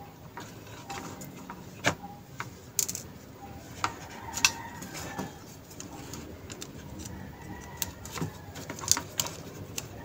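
Scattered sharp clicks and taps of small plastic and metal parts as an electric kettle's base switch and thermostat assembly is handled and worked with a screwdriver.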